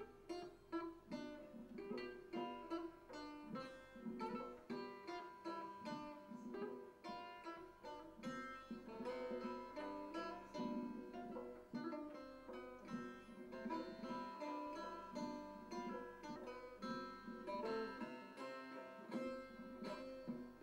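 Instrumental music led by a plucked string instrument playing a quick, busy line of picked notes.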